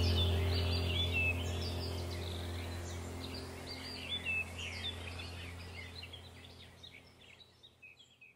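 Background track of many short bird chirps over a steady low drone, fading out gradually to near silence.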